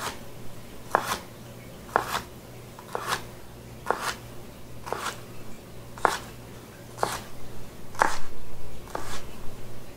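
Kitchen knife dicing a red bell pepper on a cutting board: slow, even chops, about one a second, each a sharp knock of the blade against the board.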